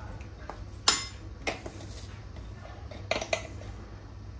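A few light clinks and taps of a small metal spice spoon against a jar and glass bowl while ground black pepper is scooped and sprinkled, the sharpest about a second in.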